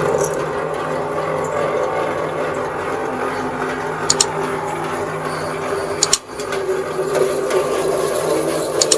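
Electric wire stripping machine running steadily, a motor hum with several steady tones. There is a brief dip about six seconds in before it picks up again, and a few sharp clicks over the running sound.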